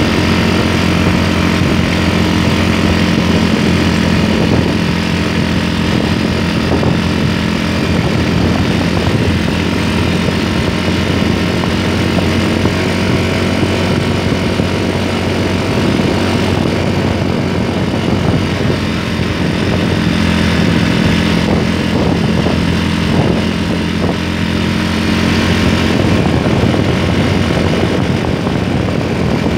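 Motorcycle engine running steadily while riding, its drone mixed with rushing wind and road noise.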